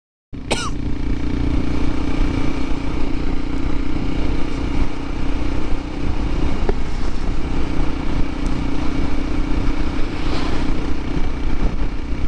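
Honda CT125 Hunter Cub's air-cooled single-cylinder 125 cc engine running steadily under way, mixed with wind and road noise. It cuts in abruptly about a third of a second in, after a moment of silence.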